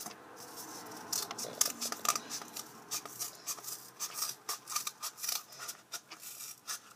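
Scissors snipping clear tape, with rustling as a cardboard toilet-paper tube is handled: a run of short, irregular clicks and rustles.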